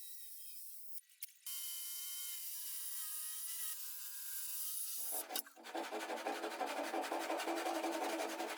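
A power tool running with a steady whine, then working into wood with a louder, fast rhythmic rasping from about halfway through.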